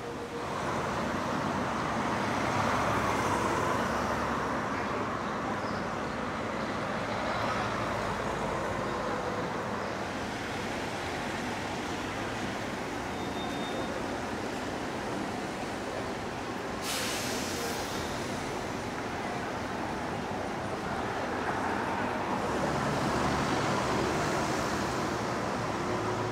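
City street traffic: engines and tyres of passing vehicles as a steady hum and rush, swelling as vehicles go by near the start and again near the end. A short sharp click about two-thirds of the way through.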